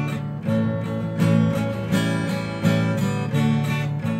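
Acoustic guitar strumming chords in a steady rhythm, about three strums every two seconds.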